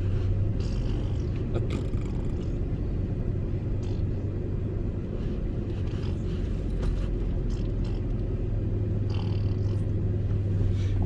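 Truck engine idling, heard from inside the cab as a steady low hum while stopped at a red light.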